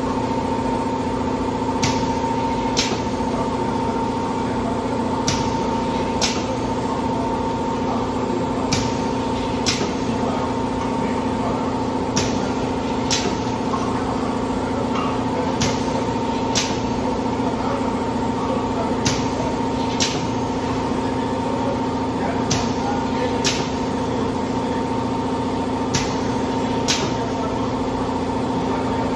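Multi-blade paper tube machine running with a steady humming drone, cut through by pairs of sharp clacks about a second apart that repeat every three and a half seconds or so, a regular machine cycle.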